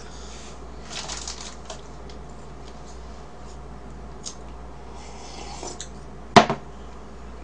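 Quiet eating sounds: small clicks and soft rustles of chewing cake and handling a plastic fork, with one brief sharp sound about six seconds in.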